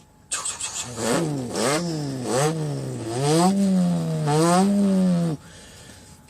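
A man imitating a car engine with his mouth, revving it up and down again and again as if bouncing off the rev limiter. It opens with a few short pops and stops sharply about five seconds in.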